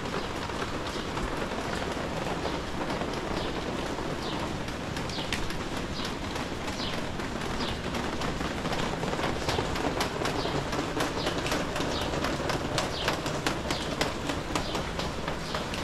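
Steady rain with many sharp drip taps, which come thicker in the second half. Short bird chirps sound several times in the first half.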